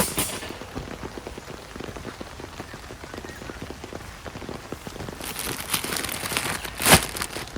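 Heavy rain pattering densely on a surface, growing heavier and hissier about five seconds in. A short, sharp, loud crack near the end stands out above the rain.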